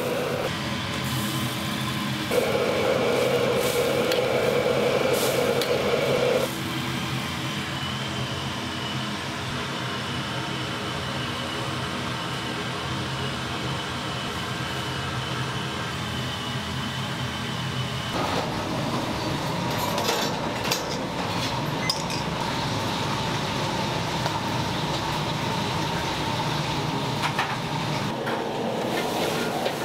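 Restaurant kitchen noise: a steady mechanical hum, with a louder rushing sound for about four seconds near the start, and scattered clinks of dishes and utensils.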